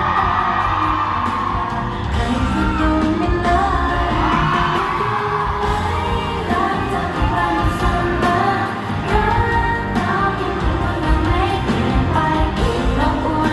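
Thai pop song performed live, with singing over a band or backing track with a steady bass beat.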